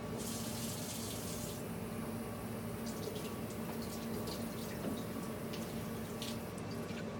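Cold water running from a tap into a sink, rinsing excess separating solution off plaster-filled denture flasks. The water rushes strongly for the first second and a half, then gives way to irregular splashes as the flasks are moved under the stream.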